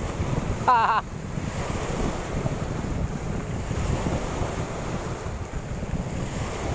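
Wind buffeting the microphone over waves washing at the sea shore. Just under a second in, a brief wavering voice-like call, the loudest sound, starts and stops abruptly.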